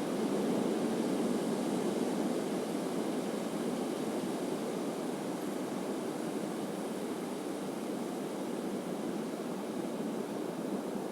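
Atlantic surf washing onto the beach: a steady rush of breaking waves, a little louder in the first couple of seconds.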